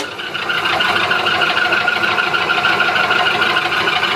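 Dake 14-inch vertical band saw running with no blade fitted: its electric motor and three-speed belt drive give a steady mechanical hum.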